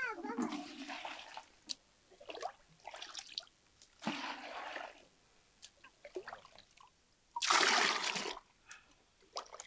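Liquid poured and splashing in about four separate bursts, the loudest and longest near the end.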